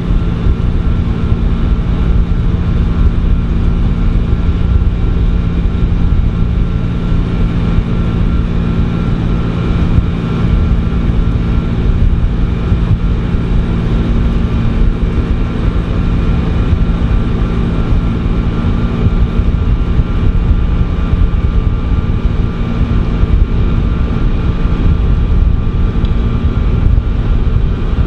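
Wirtgen W1200F cold milling machine running steadily under load: its diesel engine holds a constant tone over a continuous low rumble from the milling drum cutting old asphalt.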